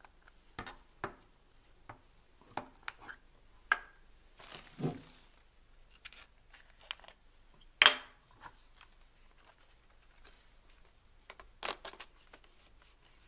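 Scattered clicks and knocks of camera gear and packaging being handled, with a short rustle about a third of the way in and one sharper, louder click a little past halfway.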